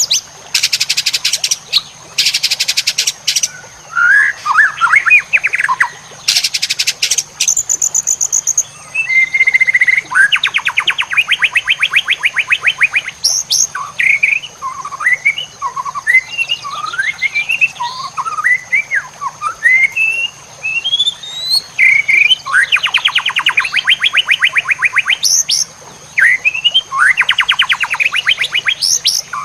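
White-rumped shama (murai batu) song from a training recording: short whistled notes that rise and fall, broken several times by fast rattling trills, the rapid-fire 'tembakan' bursts. A steady high-pitched tone sounds under the song throughout.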